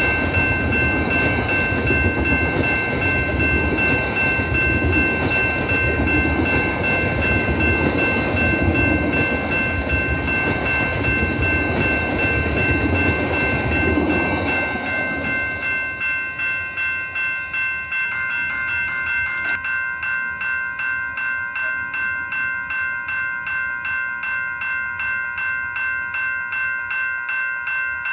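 A passenger train rumbling past a level crossing for about the first fifteen seconds, with the crossing's warning bells ringing over it. Once the train has gone by, the bells carry on alone, ringing about twice a second.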